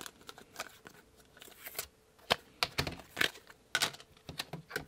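Hands handling small objects: irregular sharp clicks and taps with a few short rustles.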